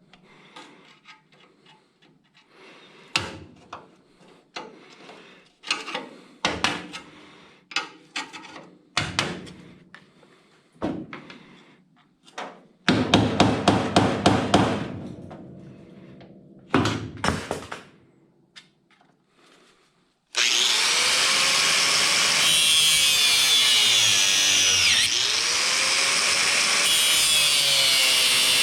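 Repeated sharp strikes on the car's sheet-metal body, with a quick flurry of them about halfway through. About twenty seconds in a power tool starts and runs steadily to the end, its pitch wavering up and down as it works the metal.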